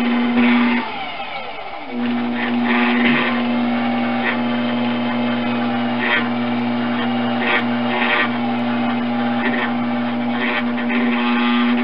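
Electric potter's wheel motor humming steadily while wet clay is centered by hand, with short wet swishes from the hands on the spinning clay. About a second in, the hum drops away with a falling pitch and picks back up about a second later.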